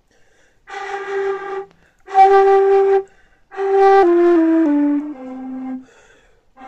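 A budget concert flute, just repadded with nine new pads, played solo: three long notes on the same pitch with short breaks between them, then a stepwise run down to a lower, softer held note.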